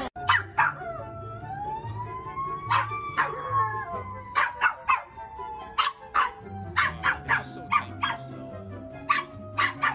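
A small dog barking repeatedly in short, sharp barks, in irregular bunches, over an emergency-vehicle siren's long wail that rises over the first few seconds and then slowly falls.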